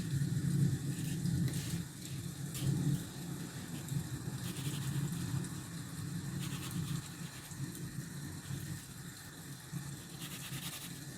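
Drawing strokes scratching on sketchbook paper in several short bursts, over a steady low rumble.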